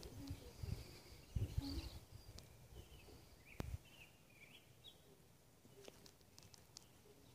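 Faint outdoor ambience with scattered short bird chirps over the first five seconds. A few low thumps in the first two seconds, and a single sharp click near four seconds.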